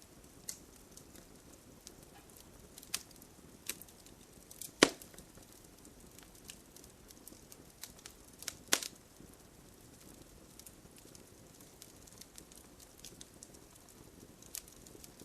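Wood fire crackling over a soft low hiss, with scattered small pops and two sharp louder snaps, one about five seconds in and one about nine seconds in.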